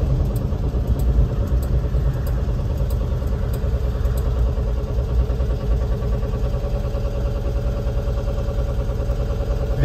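Cabin of a moving 1972 VW campervan: its air-cooled flat-four engine and road noise run steadily, with a steady higher tone and light clicks over them. This is the unexplained noise the driver says sounds like something scraping.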